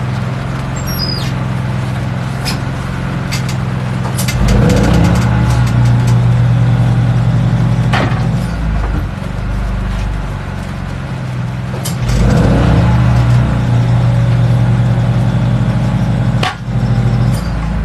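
A vehicle engine running steadily as a low hum, with scattered clanks and scrapes and two louder rumbling stretches as a new tire is worked onto its rim.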